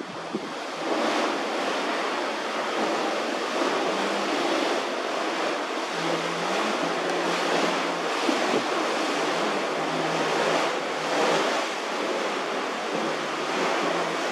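Fierce wind gusting over open water, a dense rushing noise that swells and eases, with wind buffeting the microphone. A faint low hum runs underneath.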